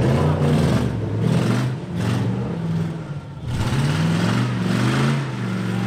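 Demolition derby pickup truck engines revving, the pitch climbing and falling, dropping briefly about three seconds in before rising again.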